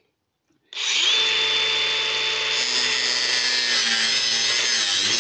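Cordless angle grinder starting up under a second in and running at a steady high whine as it cuts a notch into the end of a metal pipe.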